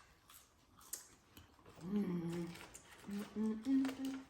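A person humming a few held notes, a short one about two seconds in, then a longer stretch that steps up in pitch near the end.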